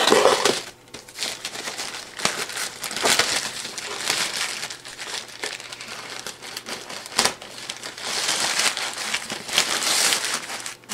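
Grey plastic postal mailer bag crinkling and rustling as it is opened and a cardboard box is pulled out of it, with a sharp click about seven seconds in.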